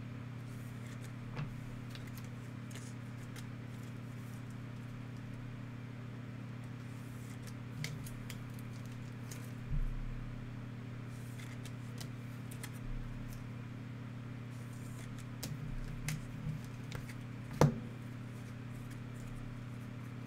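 Trading cards and rigid plastic toploaders being handled: scattered soft clicks and rustles as cards slide into the holders and are thumbed through, with one sharper tap a couple of seconds before the end. A steady low hum runs underneath throughout.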